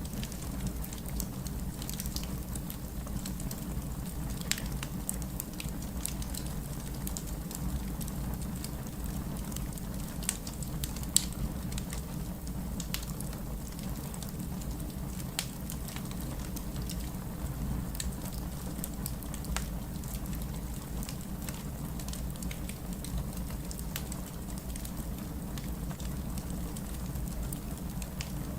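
Fireplace crackling: a steady low rumble of burning wood with irregular sharp pops and snaps, one louder pop about eleven seconds in.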